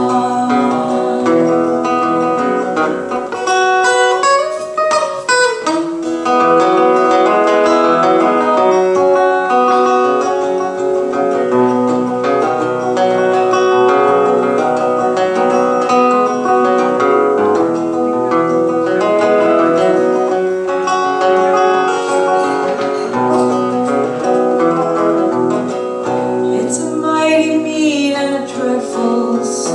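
Instrumental break in an acoustic country-folk song: acoustic guitar strumming chords under a plucked-string lead melody.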